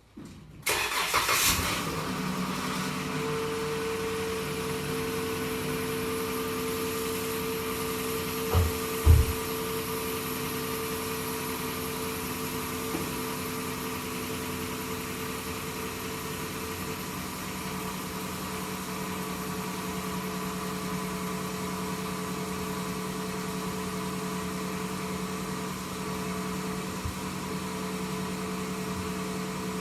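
A car engine starting and then idling steadily, with two short thumps about nine seconds in.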